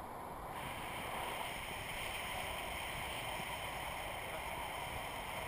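Steady rush of air over the camera as a tandem paraglider flies, growing a little louder and brighter about half a second in.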